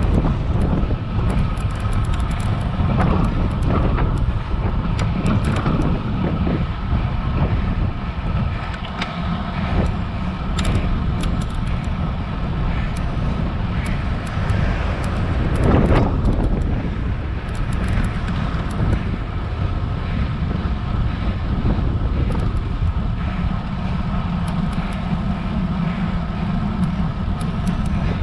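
Wind noise on a GoPro action camera's microphone on a road bike riding uphill, a steady low rumble, with a louder swell about sixteen seconds in.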